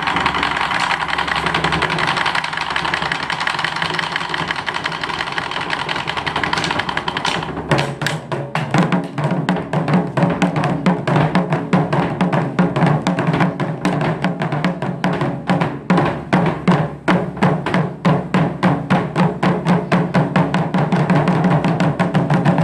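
Taiko ensemble of barrel drums playing. A fast, dense roll opens the passage, and about eight seconds in it gives way to hard, rapid rhythmic strikes on the drum heads from several drummers.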